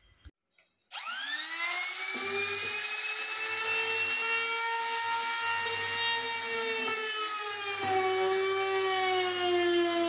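Handheld trim router switched on, whining up to full speed about a second in, then running steadily. Near the end its pitch sags a little as the bit cuts into the plywood edge, deepening the slot for a drawer lock's bolt plate.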